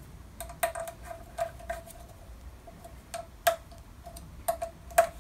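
Steel Allen key clicking against socket cap screws as they are tightened on a metal machine table. The clicks are sharp and irregular, each ringing briefly at the same pitch, and the loudest come about three and a half seconds and five seconds in.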